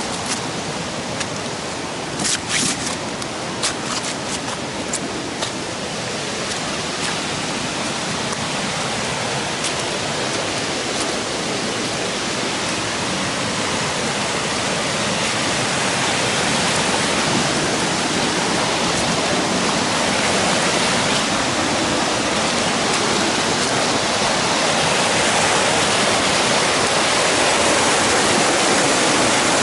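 Rushing stream water, a steady hiss of flowing water that grows gradually louder, with a few sharp clicks a couple of seconds in.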